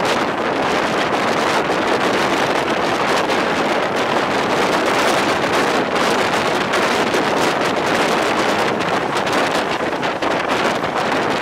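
Steady rush of wind on the microphone, mixed with the running noise of a passenger express train at speed.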